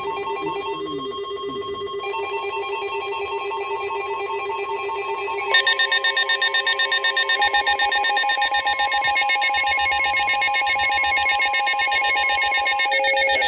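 Electronic emergency-alert tones: several steady pitches pulsing rapidly like a ringing alarm. About five and a half seconds in they jump louder and change to a new set of pitches.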